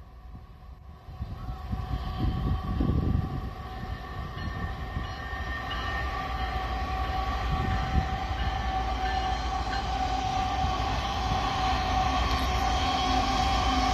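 CN freight train's diesel locomotives passing, a low engine rumble with steady high tones over it, growing louder as the locomotives come by.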